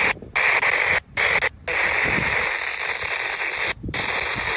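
Weather radio receiver hissing with static on a weak, noisy channel, the hiss cutting out abruptly about four times for a fraction of a second each.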